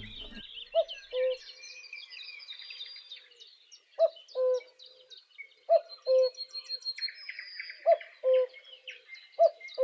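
Birdsong: a low two-note call, a short higher note then a longer lower one, repeated about every one and a half to two seconds over a chorus of high chirps and trills from small birds.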